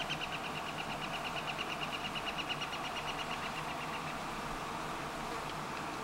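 Honeybees foraging in a flowering almond bush in bloom, making a steady hum. Over it runs a fast trill of high notes that fades out about four seconds in.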